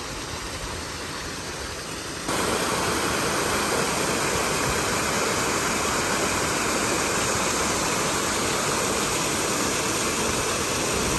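Pool water features running: a wall waterfall curtain and a row of spout jets pouring and splashing into the pool, a steady rushing of water that gets louder about two seconds in.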